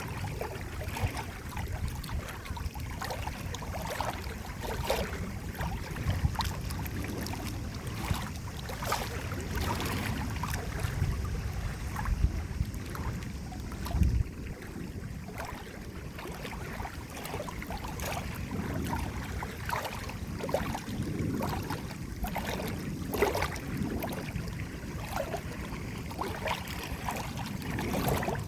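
Water splashing and gurgling continuously, many small sharp splashes over a steady low rumble.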